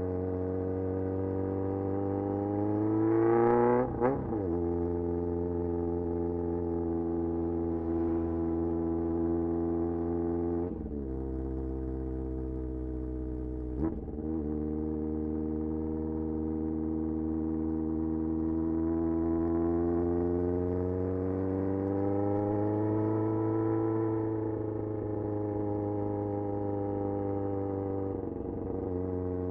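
1994 Yamaha XJR1200's air-cooled inline-four through a very loud exhaust, riding at low revs. The note dips sharply at gear changes about four seconds in and twice more soon after, then climbs slowly under light throttle and eases off near the end.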